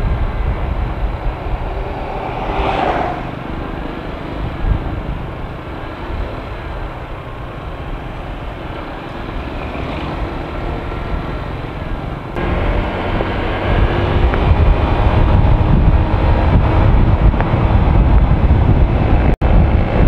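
Honda Click 125i scooter's single-cylinder engine running at cruising speed, under a heavy rush of wind over the microphone. The wind rush steps up and grows louder about twelve seconds in as the ride speeds up. The sound cuts out for an instant near the end.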